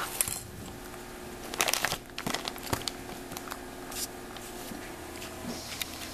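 An American Shorthair cat eating powdered supplement from a ceramic bowl: licking and clicking against the bowl in short crackly bursts, the busiest about a second and a half to three seconds in.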